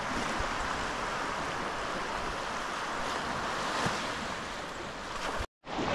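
Rushing water: a steady, even hiss of moving water, broken by a split-second dropout near the end.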